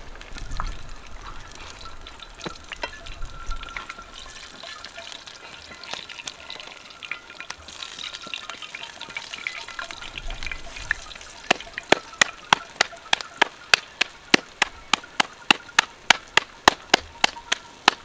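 Faint sizzling and crackling of food frying in a pan. About two-thirds of the way in, a steady run of sharp knocks starts, about three a second, louder than the sizzle.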